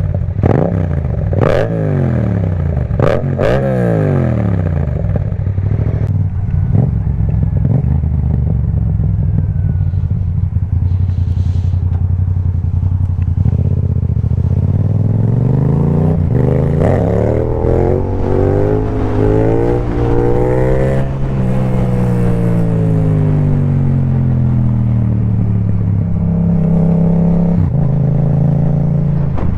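Yamaha MT-07 parallel-twin engine through an Akrapovic carbon exhaust with its dB killer removed, on the move. Early on, three sharp throttle blips drop quickly in pitch after each. After a stretch of steady running, the revs climb in steps through the middle, then fall away slowly and settle to steady revs near the end.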